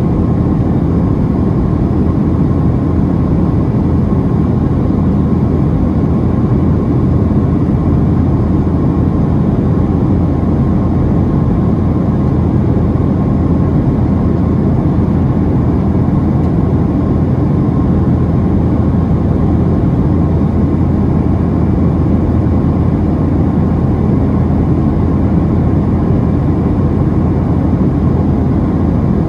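Steady cabin noise of a Boeing 737-700 in flight: the CFM56-7B turbofans and the airflow over the fuselage give an even, unbroken drone inside the cabin. It is strongest in the low range, with a faint steady higher tone above it.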